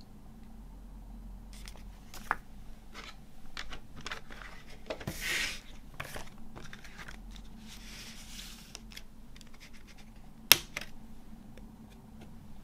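Handling of a plastic CD jewel case and its paper booklet. A soft rustle comes as the booklet is slid in, among scattered small plastic clicks and taps. One sharp, loud click comes near the end, as the disc is worked off the case's tray.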